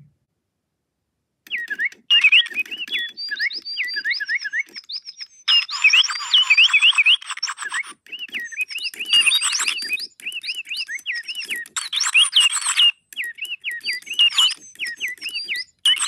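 Electronic birdsong from robotic toy birds: rapid chirps and whistles sweeping up and down in quick runs. It starts about a second and a half in and is joined by stretches of hiss.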